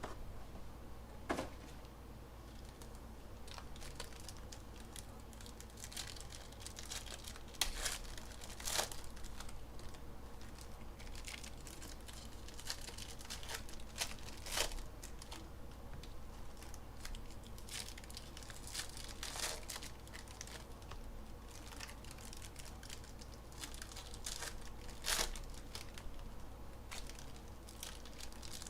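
Plastic wrapping on trading-card packaging crinkling and tearing as it is handled and opened, with scattered sharp crackles.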